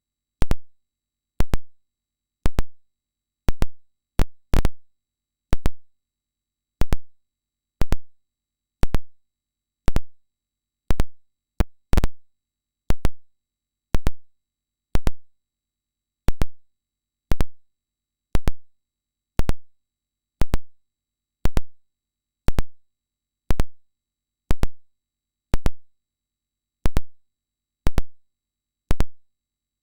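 Sharp electronic clicks, about one a second with a few in quick pairs: the switching ticks of a hearing-test tone pulsed on and off.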